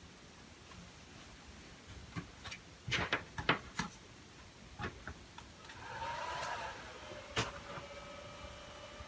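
Supermicro SuperServer SYS-5028D-TN4T with a GPU being powered on: a few clicks and knocks as hands handle the chassis and press the power button, a brief rush of fan noise about six seconds in, then from about eight seconds the cooling fans running steadily with a whining tone.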